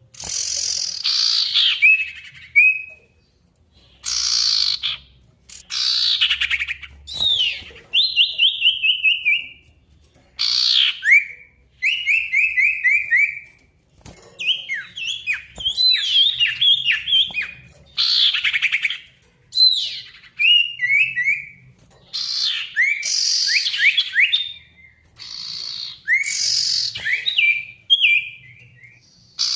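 Sirtu songbird singing energetically in full song, used as a lure to call a rival. Phrases come about every two seconds, each a sharp downward-sweeping note followed by a quick run of falling notes.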